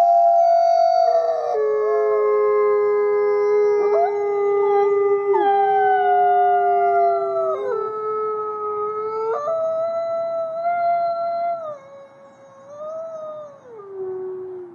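A chorus of dogs howling together: several long held notes at different pitches, sliding and stepping downward. It grows quieter about twelve seconds in and ends on a falling howl.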